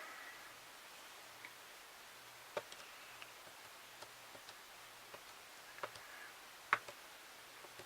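Buttons being pressed on a Brother P-Touch label maker's keypad: about ten faint, short clicks at irregular spacing, the loudest one a little before the end.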